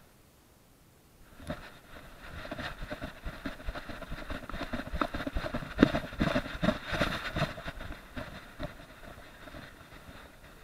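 Rustling and rapid clicks of a chest-mounted SJ4000 action camera as the dog wearing it moves, her fur and the harness rubbing against the camera housing. It starts about a second and a half in, is strongest in the middle, and eases off near the end.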